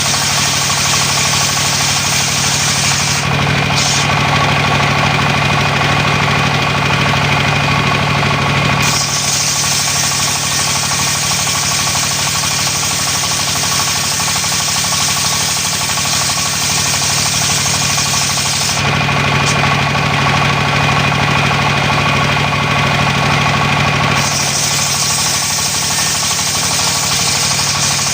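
Engine-driven homemade sawmill running steadily while sawing coconut wood into beams. A high cutting hiss rides over the steady engine hum and twice drops away for about five or six seconds, about three seconds in and again past the middle.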